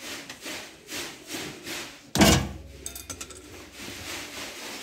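Hands handling fittings at a stainless-steel kitchen sink's drain strainer. There is a run of short rubbing strokes, two or three a second, then one loud knock a little over two seconds in, followed by a brief clatter.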